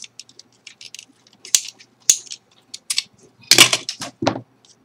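Scattered sharp clicks and knocks of small hard parts being handled, with a louder clatter about three and a half seconds in.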